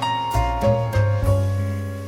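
Background music: piano-led keyboard music over a steady bass line, notes changing about every half second.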